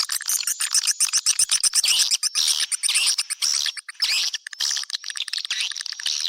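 Swiftlet calling track: a dense run of rapid clicks and twittering chirps from swiftlets, the kind of call played to lure swiftlets into a nesting house.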